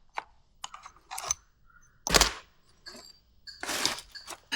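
Scattered sharp clicks and knocks of tools and parts being handled. There is a short, loud rush of noise about two seconds in and another near the end.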